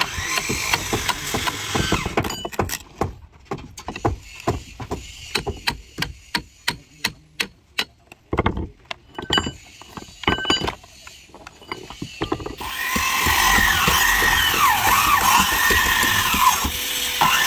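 Hammer blows on a chisel cutting hardened glue out of a wooden boat's joints, about two sharp strikes a second with short pauses. About two-thirds of the way through, a power tool starts and runs steadily, its pitch shifting as it works.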